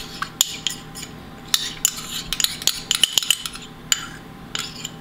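A metal spoon clinking and scraping against a sauce bottle and the rim of an aluminium pot while oyster sauce is spooned out: about a dozen irregular light clinks.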